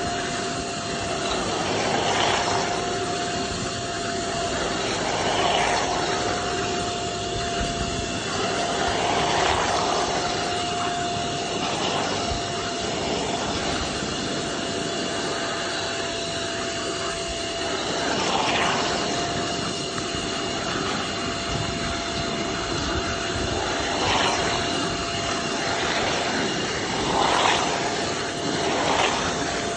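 Carpet extractor's vacuum motor running steadily with a constant whine as its wand sucks water out of a soaked shag rug. Louder sucking surges come every few seconds as the wand is drawn across.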